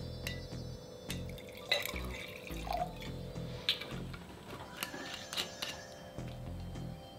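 Red wine being poured from a bottle into a wine glass, with several light clicks and knocks of glass, over background music with a steady low beat.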